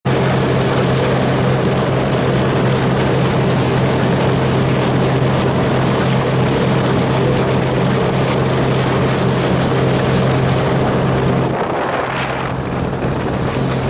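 Volga hydrofoil motorboat running fast up on its foils: a steady engine drone with a thin high whine over the rush of water and spray off the hull. About twelve seconds in, the high whine and hiss drop away for a moment, leaving the engine hum.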